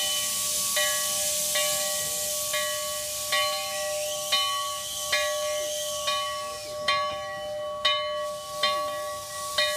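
Narrow-gauge steam locomotive's bell ringing steadily, about eleven strokes at a little more than one a second, over a continuous hiss of escaping steam as the engine moves slowly.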